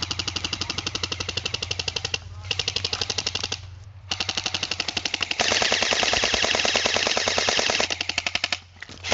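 Airsoft electric rifles firing full-auto in long, rapid bursts. The fire breaks off briefly about three and a half seconds in, comes back louder in the second half, and stops just before the end.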